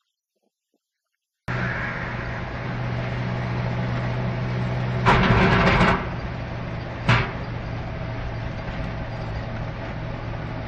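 Motor vehicle running on the road, a steady engine hum under road noise, starting abruptly about a second and a half in. Around the middle comes a loud noisy burst lasting about a second, and about two seconds later a short sharp bang.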